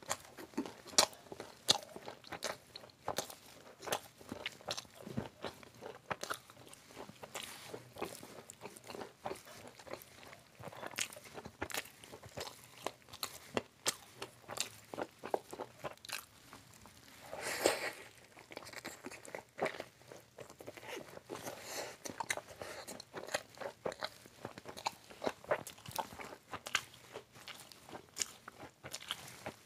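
A person biting, chewing and crunching fried street snacks such as pakoras and Mughlai paratha: a steady run of short crisp crunches. About two-thirds of the way through comes one louder, longer crunch.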